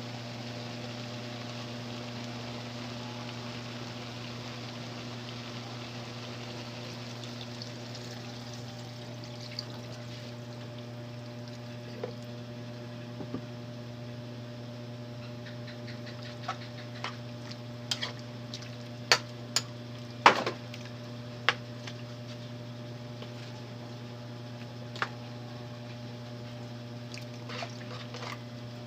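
Pot of paklay (pork innards stew) simmering over a steady low hum, with scattered sharp pops and clicks, the loudest a little past the middle.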